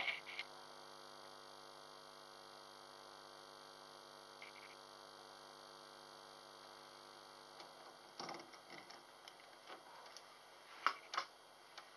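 Faint, steady electrical mains hum with several even overtones, broken by a few short clicks and knocks: one at the start, a cluster about eight seconds in and two more near eleven seconds.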